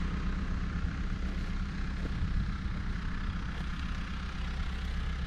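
New Holland T2420 compact tractor's diesel engine running steadily at a low, even speed.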